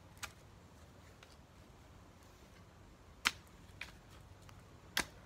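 Four short, sharp knocks, about three and five seconds in loudest, as a bamboo pole is jabbed and planted into garden soil.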